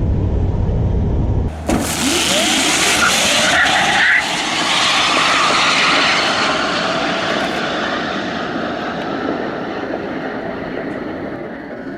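Rimac Nevera electric hypercar at full acceleration: the whine of its four electric motors rises in pitch over a loud rush of wind and tyre noise, fading toward the end. A low rumble in the first second and a half gives way abruptly to this.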